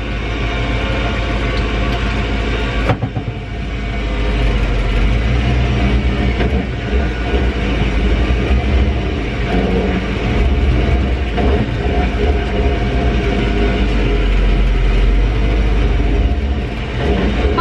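Chevy 350 V8 in an M715 military truck running under way, heard inside the open cab with a low rumble and rhythmic clatter. It dips briefly about three seconds in, then builds and holds. The owner points to a slight miss and lifter noise in this engine.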